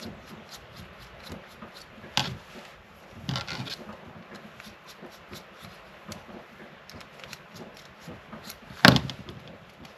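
Small plastic parts of a 3D printer filament feeder module being handled and unscrewed with a hex key: light rubbing and scraping with scattered small clicks, a sharper click about two seconds in, a short run of scrapes a second later, and a loud sharp knock near the end.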